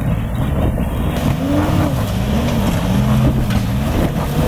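Four-wheel-drive ute's engine revving up and down under load as it climbs a rocky step, with tyres scrabbling on loose rock and dirt.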